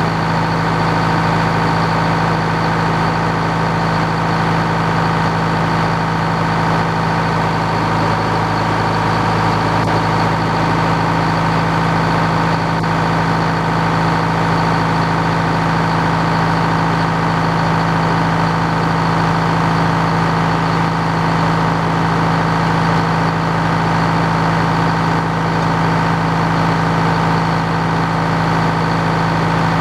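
Old Frick sawmill running steadily, a level mechanical hum that does not change under load.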